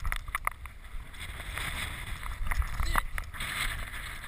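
Water sloshing and splashing, with scattered sharp clicks and a low rumble throughout.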